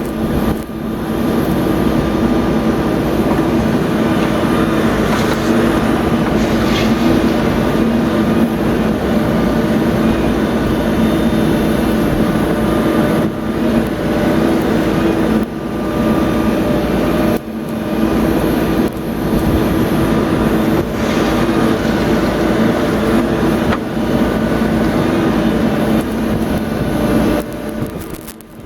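Caterpillar 420F backhoe loader's four-cylinder Cat C4.4 diesel engine running steadily at working revs while the machine digs, with several brief dips in level.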